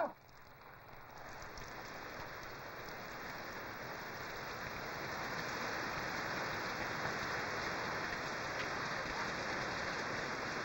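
Heavy rain pouring down on the ground, swelling over the first few seconds into a steady downpour.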